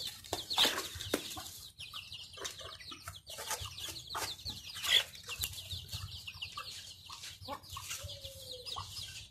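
Young chickens peeping in many short, high, falling chirps, with sharp taps of beaks pecking at fruit on cardboard and a low cluck or two near the end.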